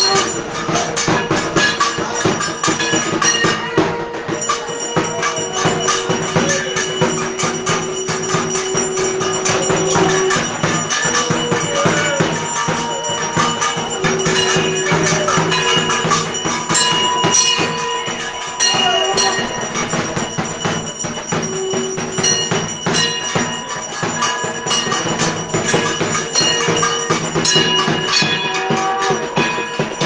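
Devotional music: fast, dense percussion with ringing bell-like tones and held melodic notes over it.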